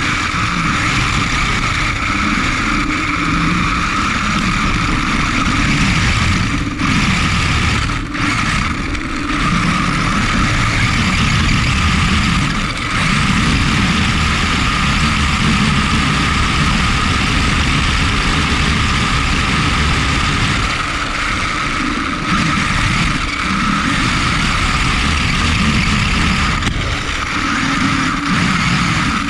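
Onboard sound of an HSP XSTR Pro electric RC car on a 3-cell LiPo driving over grass: a steady high whine from the motor and drivetrain over a rumble of wind and tyres on the turf, with brief dips about seven and eight seconds in.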